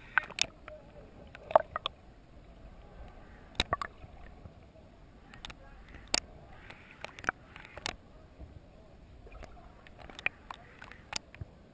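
Audio from a camera held underwater while snorkeling: irregular sharp clicks and pops scattered over a faint water hiss.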